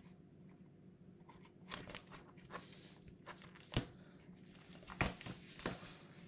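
Plastic zip-pocket cash envelopes crinkling and a ring binder being handled, with a few sharp clicks; the loudest click comes a little before four seconds in, and more follow around five seconds.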